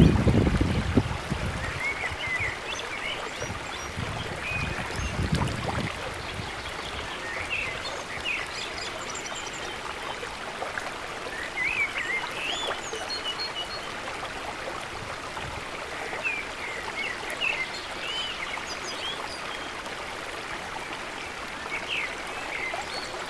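Rainwater draining out of a flooded paddy field, flowing as a steady trickling stream, with small birds chirping throughout. A low rumble, like wind on the microphone, at the start and again around five seconds in.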